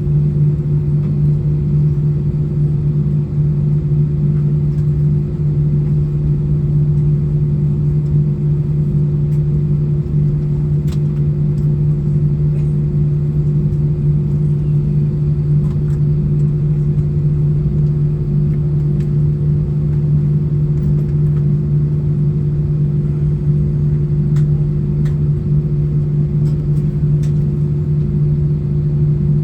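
Steady low drone inside an Airbus A320 cabin on the ground after landing, a constant hum with a couple of held tones. Faint ticks sound now and then above it.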